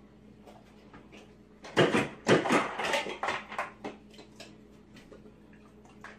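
A dog pushing a refrigerator's door water-and-ice dispenser with its muzzle: a burst of clattering and knocks about two seconds in that lasts a second or two, then a few faint scattered clicks.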